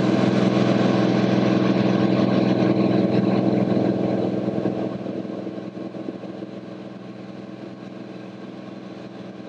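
Cirrus SR22T's turbocharged six-cylinder engine and propeller giving a steady drone inside the cockpit in flight. It gets quieter over a few seconds about halfway through and stays lower.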